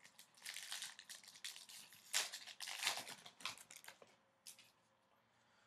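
Trading card pack wrapper crinkling as it is torn open and the cards are handled, a string of rustling scrapes for about four seconds before it goes quiet.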